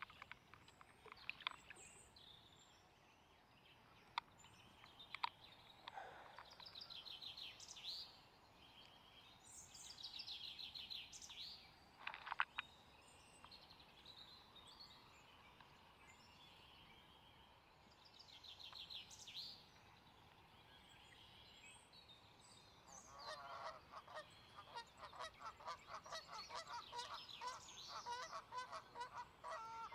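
Birds calling: scattered short chirps and trills, then for the last several seconds a fast, steady run of repeated calls. A few sharp clicks in the first seconds.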